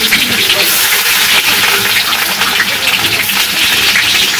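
Chopped onions sizzling in hot oil in a karahi over a fire, a steady crackling sizzle as they are scooped into the pan.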